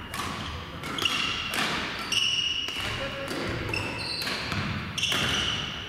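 Badminton rally on an indoor court: several sharp racket hits on the shuttlecock, with shoes squeaking briefly on the court floor between them.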